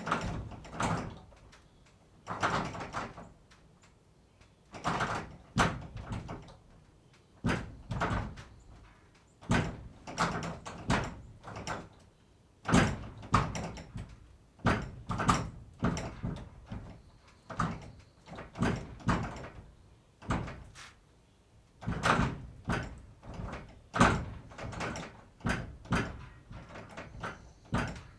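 Barn door being worked over and over, with knocks, rattles and bangs coming in clusters every two to three seconds.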